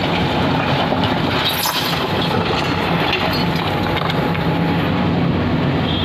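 JCB backhoe loader's diesel engine running steadily under load while its backhoe bucket digs into and lifts broken brick rubble, with bricks rattling and scraping; a burst of clatter about a second and a half in.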